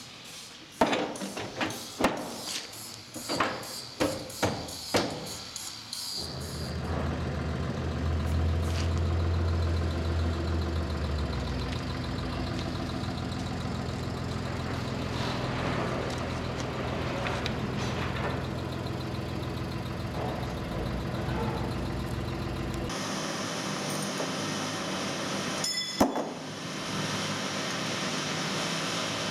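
About eight sharp knocks over the first five seconds, then a steady machine hum that runs on to the end, thinner for the last few seconds, with one more sharp knock.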